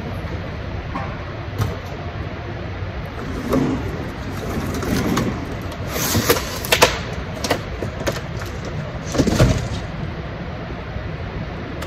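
Cardboard boxes being handled at a roller conveyor: scraping, a flurry of knocks around the middle, and one heavy thump about nine and a half seconds in, over a steady machine hum.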